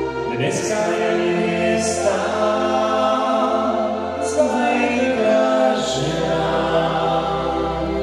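Slow song with several voices singing long held notes over sustained chords from a small band.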